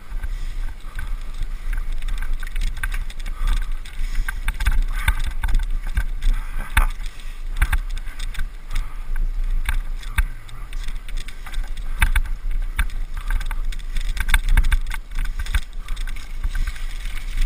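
Wind rumbling on the microphone of a camera ridden along a rutted, muddy track, with frequent irregular knocks and rattles from the bumps. No engine note is heard.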